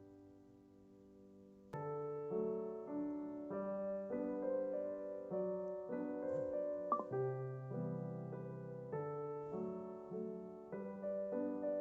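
Background piano music: a chord fades, then about two seconds in a gentle piano melody starts again and runs on in steady, evenly struck notes.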